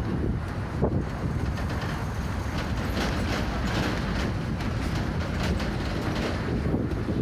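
Inside a moving route bus: steady low road rumble with frequent rattling and clatter from the bus body.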